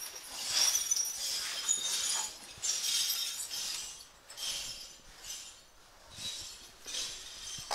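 Broken glass being swept up, the shards scraping and clinking in strokes about once a second.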